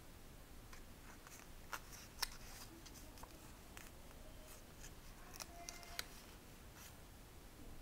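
Faint crinkling and crackling of a small square of origami paper being folded and creased by hand, with a few sharp crackles, the loudest a little over two seconds in.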